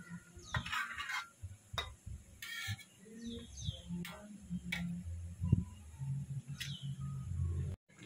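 Birds chirping in short calls, a few falling in pitch, while a metal ladle stirring chicken in a steel wok clinks against the pan a few times, over a low steady hum.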